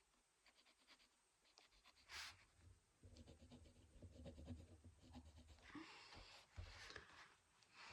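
Faint scratching of a mechanical pencil drawing on paper in quick short strokes, starting about three seconds in after a single brief scrape.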